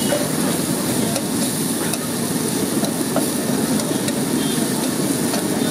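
Chopped liver sizzling on a large flat griddle while a slotted steel spatula stirs it and scrapes it across the pan. A few light metal clicks come through the steady sizzle.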